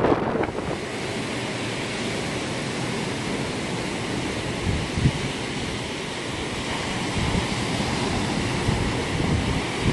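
Sea surf breaking and washing up onto the beach, a steady rushing wash, with wind buffeting the microphone now and then.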